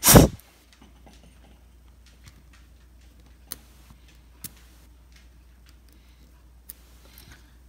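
A single loud knock right at the start, then faint handling noise with three sharp little clicks spread out over several seconds. These come from the small metal parts of a disassembled folding knife being handled and fitted together.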